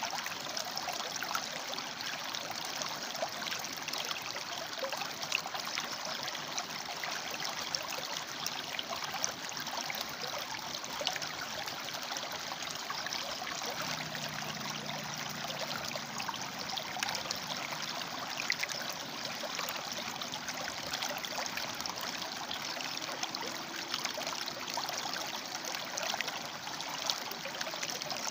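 River water flowing over and between rocks: a steady rushing with small splashes and trickles.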